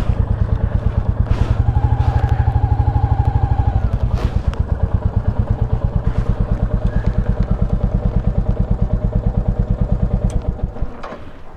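Royal Enfield Classic 350's single-cylinder engine running at idle with an even beat of firing pulses, then switched off shortly before the end.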